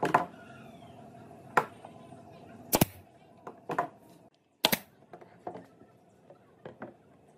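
Pneumatic nail gun firing sharp shots into pine boards, roughly one a second over the first few seconds, followed by quieter knocks of wood being handled on the workbench.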